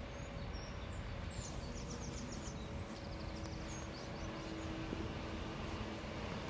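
Steady low rumble of a diesel coach engine running close by, with a faint hum that rises out of it for a couple of seconds in the second half.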